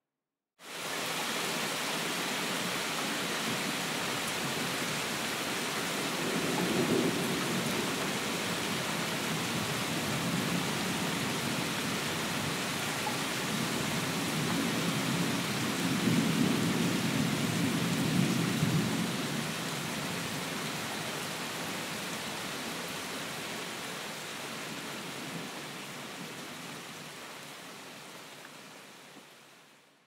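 Steady rain hiss with two low rolls of thunder, a short one about seven seconds in and a longer one from about fifteen to nineteen seconds. The rain starts abruptly just after the start and fades away near the end.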